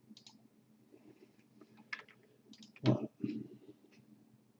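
Scattered faint computer mouse clicks, with one louder knock a little under three seconds in.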